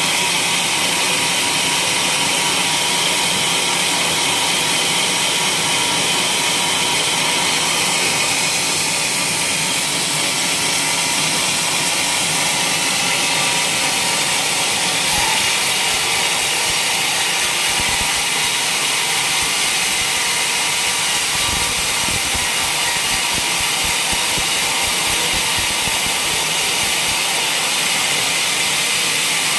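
Sawmill running steadily as its blade saws through a waru gunung log, a continuous, unchanging mechanical noise.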